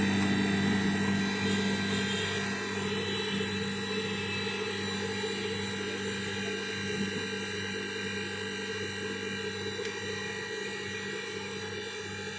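General split air conditioner running: the compressor and outdoor fan give a steady hum with a high whine, growing gradually quieter. The unit is being pumped down, with its refrigerant being shut into the outdoor unit by closing the service valves.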